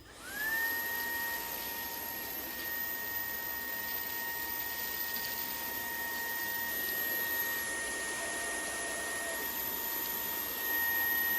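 Cordless stick vacuum motor spinning up and then running with a steady high whine over rushing air.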